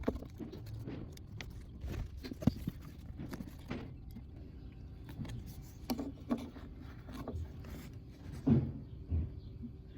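Hands working new automotive carpet around a floor button: scattered taps, clicks and rustling, with a few louder knocks near the end.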